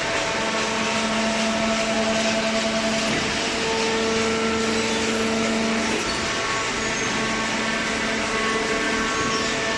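Hydraulic waste-paper baler running, a steady machine noise of motor and hydraulic pump with a low hum and a higher whine; the hum's pitch shifts and it weakens about six seconds in.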